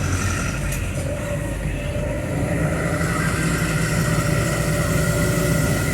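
Vehicle engine running steadily while driving, heard from inside the cab, with a continuous road hiss; the engine note grows a little stronger about halfway through.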